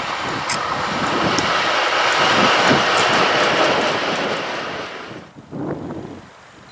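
Freight train passing on the line. Its rushing rail noise builds to a peak about halfway through, then drops away sharply about five seconds in.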